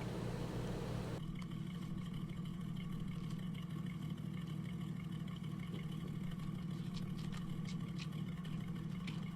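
A car engine running steadily with a low hum, with a few faint ticks near the end.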